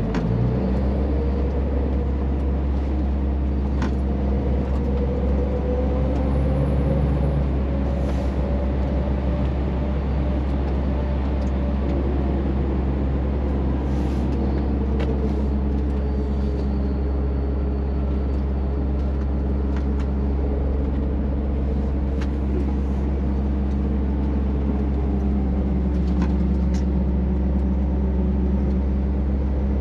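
Scania truck's diesel engine running steadily, heard inside the cab while driving, its pitch slowly rising and falling with engine speed. A few faint clicks sound now and then over the drone.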